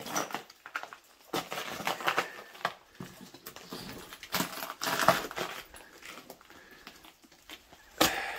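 Footsteps crunching and scraping over ice and frozen snow, in uneven bursts of a few steps at a time.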